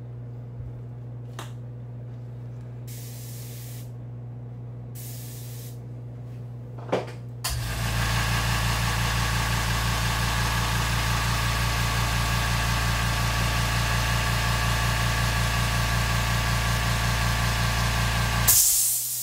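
Two short airbrush hisses, then an air compressor kicks on about halfway in and runs steadily with a fast, even pulsing. It stops near the end with a short loud hiss.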